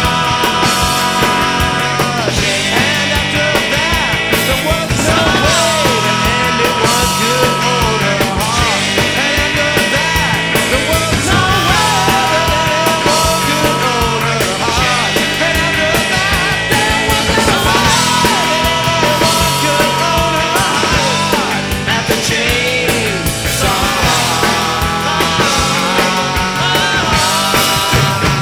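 Rock band playing an instrumental passage: lead electric guitar with held and bent notes over bass and drums, at a steady loud level.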